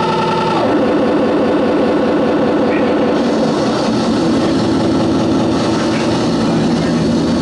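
Harsh noise music: a loud, continuous wall of distorted electronic drone with an engine-like churn. The held high tones drop out about half a second in, and the sound thickens into a dense, grinding mid-range drone.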